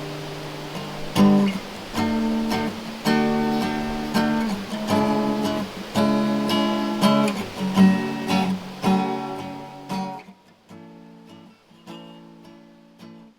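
Acoustic guitar strumming the closing chords of a song with no singing, growing steadily quieter. About ten seconds in the background hiss drops out and a few soft, sparse final notes ring and fade away.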